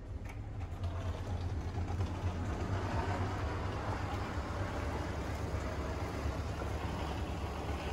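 Steady low rumble of vehicle engines with a wash of traffic noise, building over the first couple of seconds and then holding.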